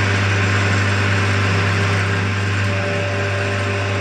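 Electric arc welding of the joint in a Massey Ferguson 240's rear axle as it turns in a lathe: a steady low hum under an even hiss from the arc.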